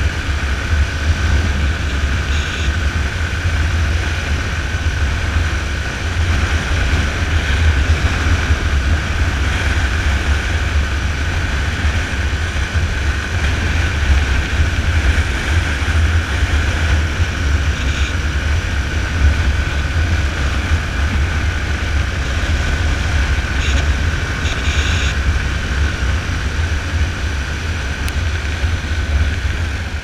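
Yamaha Fazer 250's air-cooled single-cylinder engine running steadily while the motorcycle cruises along a road, under heavy wind rumble buffeting the on-bike camera microphone.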